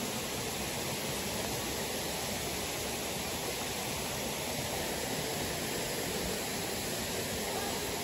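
Steady rush of water from a nearby waterfall and stream: an even, unbroken hiss.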